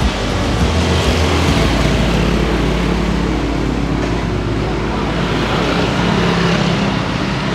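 Road traffic on a busy street going past close by, a continuous wash of vehicle noise that swells and eases.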